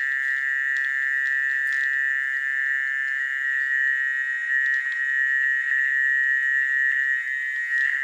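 Dense chorus of frogs calling after rain, a steady high-pitched drone with a few sharp clicks scattered through it.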